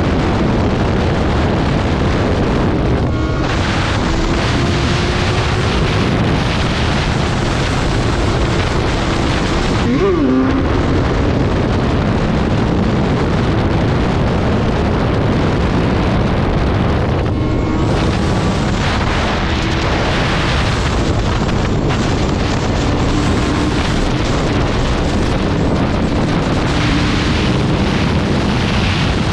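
BMW S1000R inline-four engine running at freeway speed, buried under heavy wind rush on the microphone. About ten seconds in the engine note swings sharply and then settles lower.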